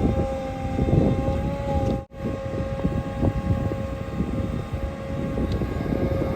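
JCB 3DX backhoe loader's diesel engine running under working load: a steady low rumble with a steady whine held over it. The sound drops out for an instant about two seconds in.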